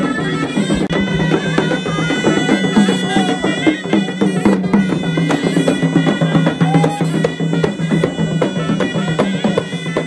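Moroccan folk troupe: ghaita shawms play a reedy melody over a double-headed drum and frame drums, with drum strokes several times a second.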